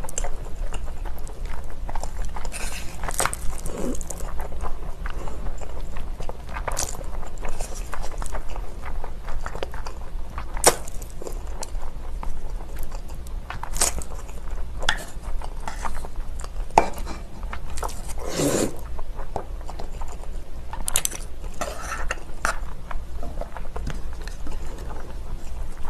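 Close-up eating sounds of spicy cold noodles: scattered slurps, bites and chewing, with chopsticks clicking against a stainless steel bowl, over a steady low hum.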